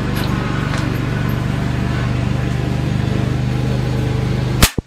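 A steady low droning hum, then near the end a single sharp shot from a Ruger Airhawk .177 break-barrel air rifle firing a pellet. Right after the shot the hum cuts off suddenly.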